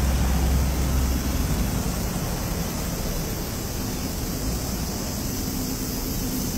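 Steady outdoor background noise, with a low rumble like passing traffic that fades about a second in.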